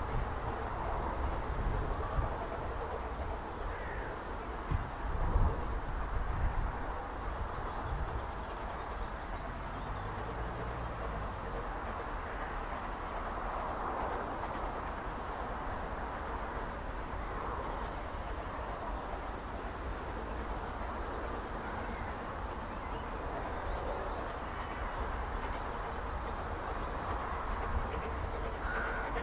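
Countryside ambience: a high, fast, evenly repeating chirping carries on throughout over a low rumble, with a few louder low thumps in the first seven seconds.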